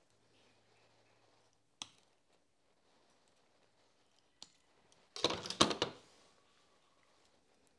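Bonsai scissors snipping Callistemon (bottlebrush) shoots: one sharp snip a little before two seconds in and a fainter one about four and a half seconds in. Then a short, loud cluster of clicks and rustling, the loudest sound, as the cut growth is handled.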